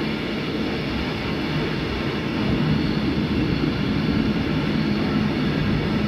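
A freight train's wagons rolling past, with a steady noise of wheels on rails that swells slightly about halfway through.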